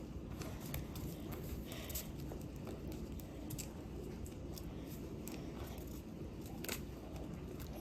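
A sheet of paper being folded and creased by hand for a paper airplane: faint crinkling with scattered light taps and ticks.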